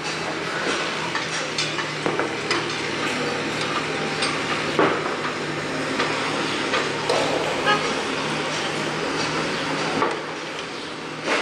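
Construction site noise: irregular metallic clinks and knocks, a few louder ones in the second half, over a steady engine hum and passing traffic.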